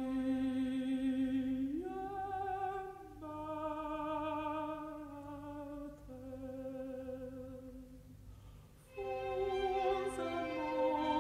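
Contralto voice singing slow, long-held notes with a wide vibrato over a soft string and organ accompaniment. The music fades to a quieter stretch, then swells louder again about nine seconds in.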